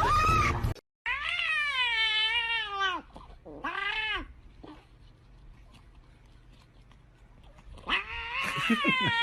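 Domestic cat meowing: one long drawn-out meow that dips and rises in pitch, then a shorter meow, and after a pause several more meows near the end.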